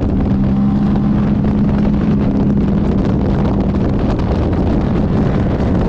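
GM engine of a 24 Hours of Lemons race car running hard at a steady speed, its pitch holding level, with wind buffeting the microphone.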